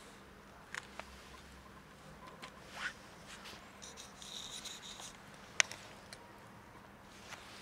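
A cat chewing dry kibble: quiet crunching and scratchy noises with a few sharp clicks, the loudest a single crisp click a little past the middle.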